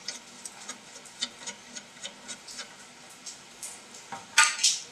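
Light, irregular clicking as a brass gas-hose fitting is threaded by hand onto a TIG welder's gas inlet. About four seconds in comes a louder metallic clatter as an adjustable wrench is picked up from among the tools on the bench.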